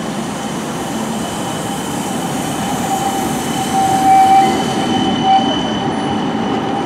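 CAF Urbos 3 tram rolling past close by on a tight curve: a rumble of steel wheels on grooved rail, with a high squeal from the wheels on the bend that swells to its loudest about four seconds in.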